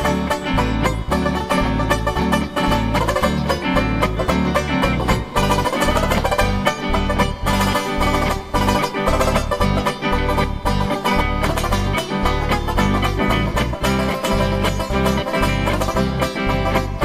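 Banjo tune in a South African style, quickly picked notes over an accompaniment with a bass line stepping back and forth between notes in a steady rhythm.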